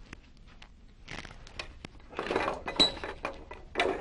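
Small metal lathe fittings being picked up and handled: scattered sharp clinks and clicks mixed with short rustling, loudest around the middle and again near the end.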